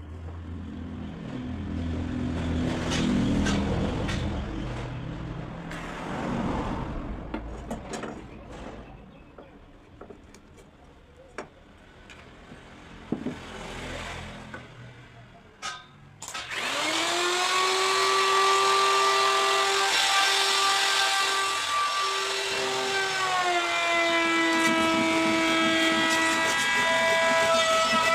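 Workshop sounds of wood being handled, with irregular knocks and rubbing. About sixteen seconds in, an electric power tool starts and runs with a loud, steady whine whose pitch dips and recovers a few times.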